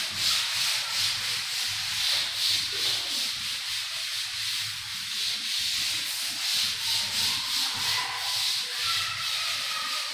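A chalkboard duster rubbed across a chalkboard, wiping off chalk in quick, rhythmic back-and-forth strokes.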